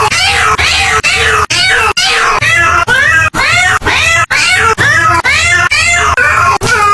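Cat meowing over and over, a chain of short rising-and-falling meows about two a second, each cut off sharply into the next.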